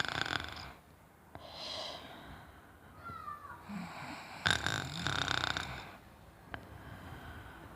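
A person snoring: two loud snores, one at the start and another about four and a half seconds in, each lasting around a second, with quieter breathing between.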